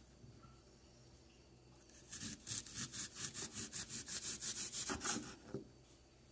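Coarse-toothed handsaw sawing through a half apple in quick back-and-forth strokes, about six a second. The sawing starts about two seconds in and stops about a second before the end.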